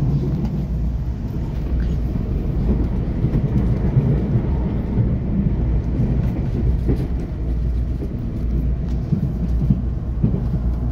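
Inside the cabin of a moving electric train: the steady running rumble of wheels on rail, with faint scattered clicks from the track. Another train passes close alongside around the middle.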